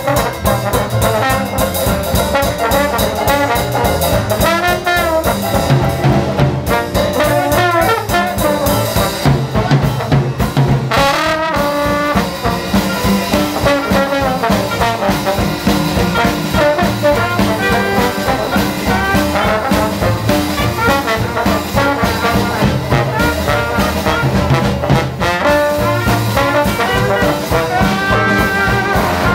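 Trombone solo in a New Orleans-style traditional jazz band, with the horn sliding between some notes over a banjo and drum-kit rhythm section. A trumpet joins near the end.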